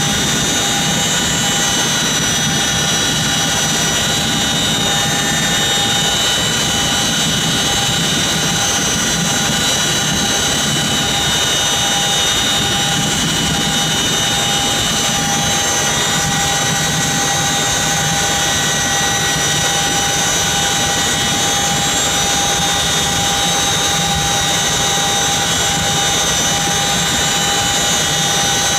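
CH-47 Chinook helicopter running on the ground, heard from inside its cargo bay: a loud, steady turbine whine made of several high tones over a low rumble, unchanging throughout.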